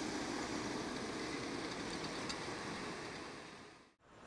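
Tatra KT4D articulated tram rolling past on street track: a steady rumble of wheels on rails and running gear, fading out near the end.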